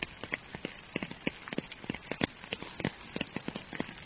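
Steady rain with a soft hiss and many close, irregular raindrops landing, several a second.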